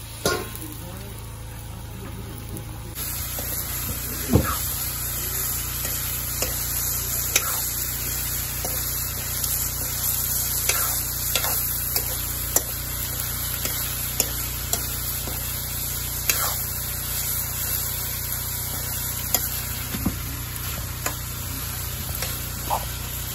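Food sizzling in an iron wok over a wood fire, with a metal spatula scraping and clinking against the pan a dozen or so times as it is stirred. The sizzle grows louder about three seconds in.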